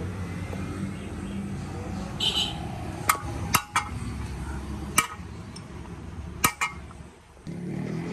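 Metal tools and parts clinking sharply against each other, about six separate clinks, over a steady low background hum.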